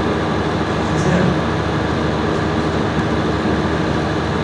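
A steady, loud hiss and hum from a microphone and PA loudspeaker system, with a man's amplified voice faint beneath it.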